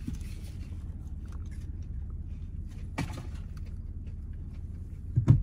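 Steady low hum in a car cabin, with a single sharp click about three seconds in and a louder thump just before the end.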